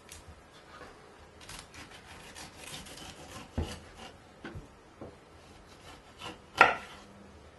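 Rubbing and scraping of a dry-aged beef rib eye being worked on a cutting board, with a few light knocks and one sharper knock about two-thirds of the way through.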